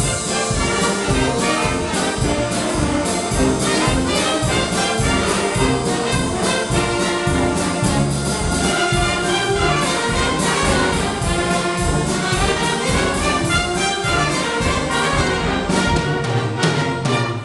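Concert band playing, brass to the fore over woodwinds, with a drum kit keeping a steady beat.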